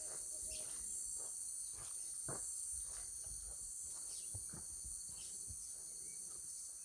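Steady, high-pitched chorus of insects, with faint scattered clicks.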